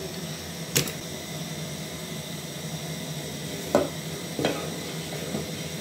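Wooden spoon stirring thick millet porridge in an aluminium pot, with three sharp knocks of the spoon against the pot, about a second in and twice near four seconds in, over a steady hiss.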